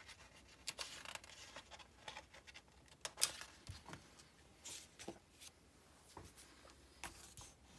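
A book page being turned by hand: faint paper rustling and soft handling taps, with the sharpest rustle about three seconds in as the page flips over.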